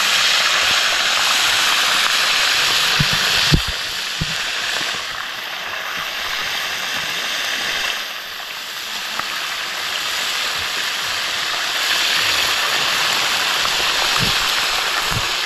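Whole tilapia deep-frying in a large amount of hot oil: a loud, steady sizzle that eases a little about four and eight seconds in and swells again near the end, with a couple of low knocks around three to four seconds in.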